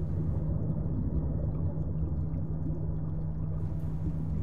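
A low, steady rumbling drone with a muffled, watery churn.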